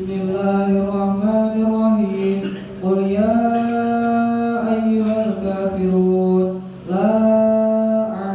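A young man's voice chanting Quranic recitation into a microphone, in long held melodic notes that step up and down in pitch, with two short breaths for breath.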